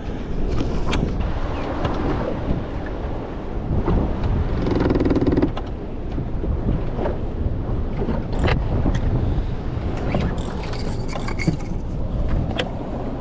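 Wind buffeting the microphone on an open boat at sea, with water noise, a short steady whirr about five seconds in, and scattered clicks and scrapes of a spinning rod and reel being worked, mostly in the last few seconds.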